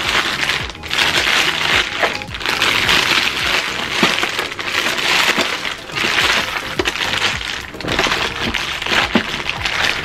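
Clear plastic bag crinkling in repeated bursts as it is pulled off a plastic toy workbench, over background music.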